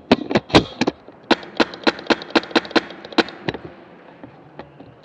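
Airsoft gun firing rapid single shots: a quick cluster in the first second, then a steady string of about four shots a second that stops about three and a half seconds in.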